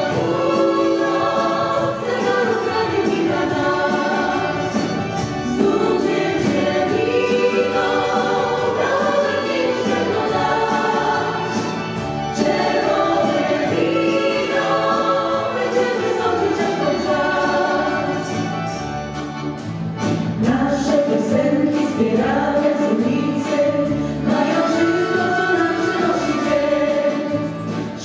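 Female vocal ensemble singing a song in several-part harmony, with a live band of accordions, drums and piano behind them and a steady beat.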